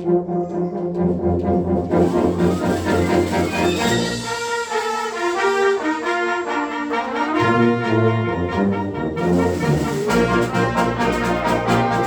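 Concert band playing, brass to the fore, with held chords and moving lines over them. The lowest brass drop out about four seconds in and come back a few seconds later, and the full band fills out near the end.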